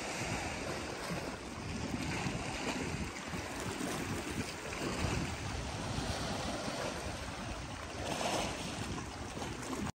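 Small sea waves washing against rocks, with wind buffeting the microphone in a low gusty rumble; the sound swells a few times and cuts off suddenly just before the end.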